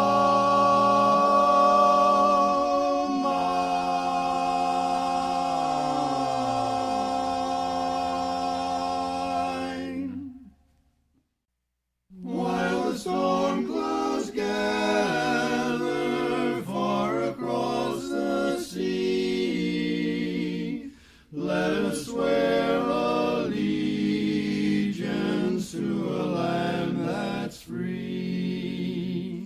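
Barbershop quartet singing a cappella in four-part close harmony. A long held final chord, with one voice sliding down beneath it, fades out about ten seconds in. After a short silence the quartet starts a new song, in phrases of blended chords.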